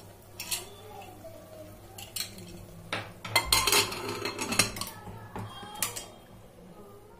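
Aluminium Hawkins pressure cooker lid being fitted onto the pot and turned to lock, metal clanking and scraping on metal with the rubber gasket removed. A few separate knocks build to a busy run of clanks in the middle, with one last knock near the end.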